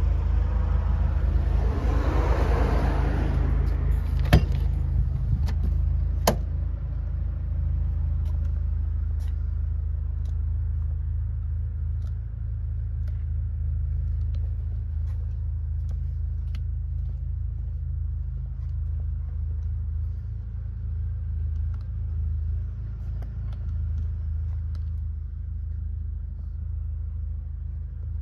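Land Rover Defender's Puma 2.2-litre four-cylinder diesel idling with a steady low rumble. A brief rush of noise in the first few seconds, and two sharp clicks about four and six seconds in.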